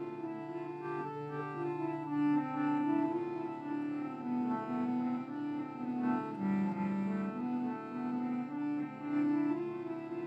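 Instrumental music: a slow melody of held notes moving up and down in small steps over a steady low drone.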